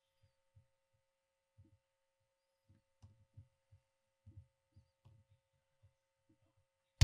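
Faint, irregular low thumps over a faint steady hum, then a loud low thud right at the end.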